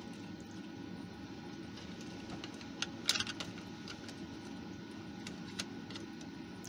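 Light clicks and taps of a small loudspeaker and its plastic retaining ring being handled and pressed into a Stylophone's plastic case, with a short cluster of clicks about three seconds in and another single click near the end, over a steady low background hum.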